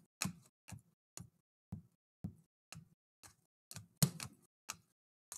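Stiff trading cards clicking as they are flicked one by one from the front to the back of a hand-held stack. There are short, sharp clicks about twice a second, fairly evenly paced.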